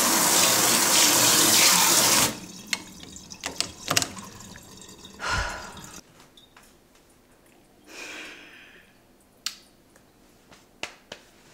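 Water spraying from a newly installed pull-down kitchen faucet's spray head into a stainless steel sink at strong pressure. It stops abruptly a little over two seconds in, followed by scattered light clicks and knocks.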